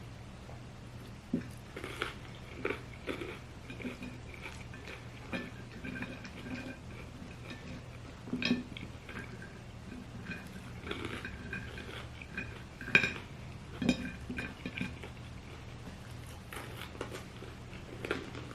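Eating at a table: chewing with scattered light clicks and clinks against a plate, a few louder knocks among them.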